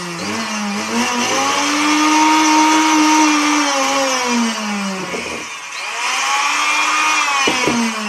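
Sewing machine electric motor running with a whine, speeding up and slowing down several times and nearly stopping about five seconds in before spinning up again. It is running properly after being repaired for a short circuit.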